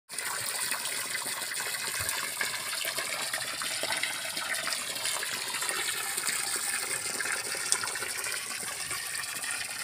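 Steady splashing and gushing of water in a shallow tarpaulin pond crowded with African catfish fingerlings, with constant small crackles of churning water.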